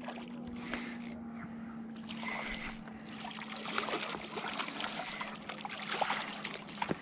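Hooked carp splashing and thrashing in shallow water as it is reeled in and slid up onto the stony shore, the splashing growing busier in the second half with a few sharp knocks near the end as it reaches the rocks.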